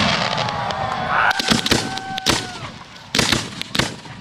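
Fireworks going off: clusters of sharp bangs and crackling reports, with a whistling tone in the first half that bends down in pitch.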